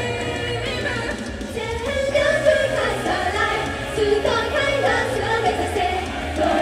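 Idol-pop song performed live: female voices singing a melody over amplified backing music.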